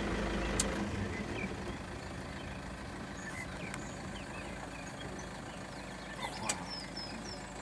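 Vehicle engine running at low revs while crawling, its low hum dropping off about a second in. A couple of sharp clicks and a few short high chirps sound over it.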